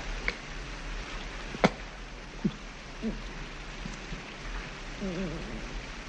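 A steady rushing hiss like running water, broken by a few sharp clicks, the loudest of them about a second and a half in. About five seconds in comes a brief, wavering, strained vocal sound from a man.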